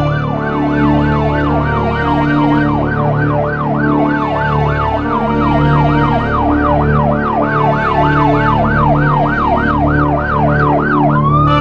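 A siren sweeping quickly up and down, about three times a second, over a low sustained music drone. Near the end the sweeping stops and gives way to one slow rising tone.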